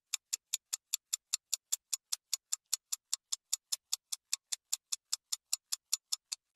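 Stopwatch-style ticking sound effect: an even run of sharp, high clicks, about five a second.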